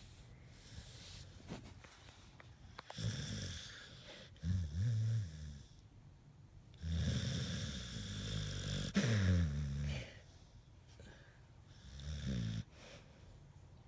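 Pit bull snoring in its sleep: several separate low snores with pauses between them, the longest lasting about three seconds.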